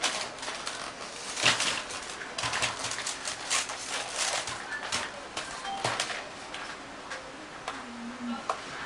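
Plastic packaging being handled as a toy RC helicopter and its remote control are pulled from the box's insert tray: irregular clicks, crinkles and small knocks.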